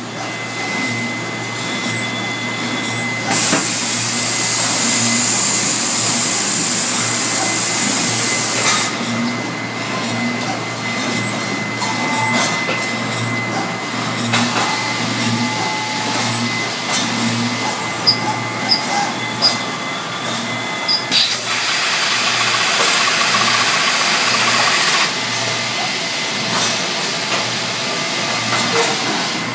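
CNC brake-disc drilling machine at work, its drilling spindles running with a steady machine hum and a faint pulse about once a second. Two spells of loud hissing come in, one a few seconds in lasting about six seconds and one about two-thirds through lasting about four, with a few sharp clicks between them.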